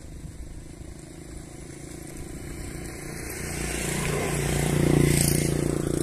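A motor vehicle's engine approaching and passing, a steady hum that grows louder from about two seconds in and is loudest around five seconds.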